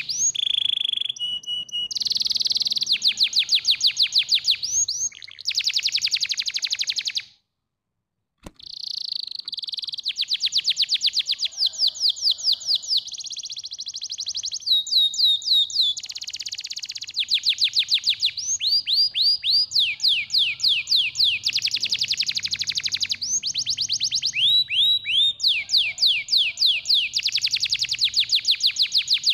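Domestic canary singing a long song of rapid trills, each a run of quick repeated high notes, switching from one phrase to the next every second or two. The song breaks off completely for about a second roughly a quarter of the way through.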